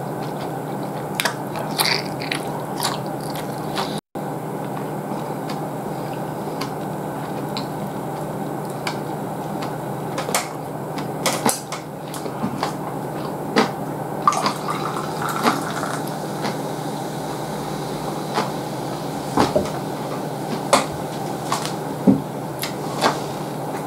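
Close-miked eating sounds: chewing with scattered clicks of chopsticks and tableware. Partway through, beer is poured from a can into a glass. A steady hum runs underneath.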